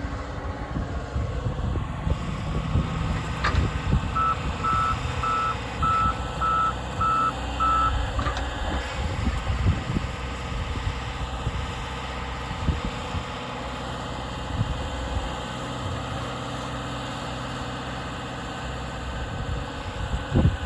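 Volvo ECR145 excavator's diesel engine running steadily. Its travel alarm beeps about seven times, roughly two a second, a few seconds in. A few knocks are heard, one near the end.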